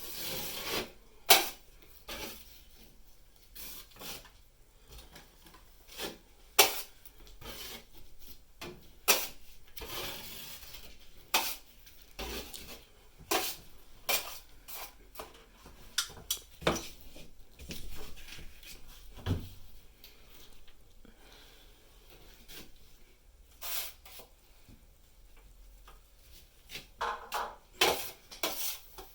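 Hand tools scraping and rubbing during wall patching work, with irregular sharp clicks and knocks.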